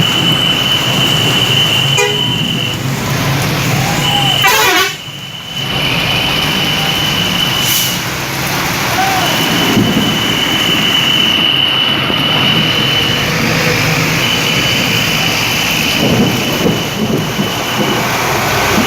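Indonesian bus 'telolet' air horn sounding in long, steady high tones, four times with short breaks between, over steady traffic noise.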